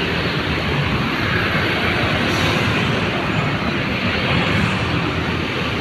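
Intercity coach bus's diesel engine running steadily as the bus pulls out of the terminal, with no horn sounding.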